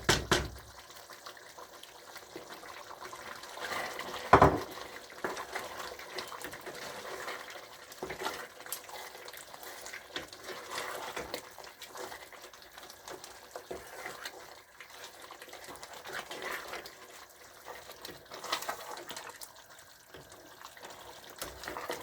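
Cooking sounds at a pot of egusi soup as bitter leaf is added: liquid sloshing and small scrapes and clicks of a spoon, with one loud knock about four seconds in.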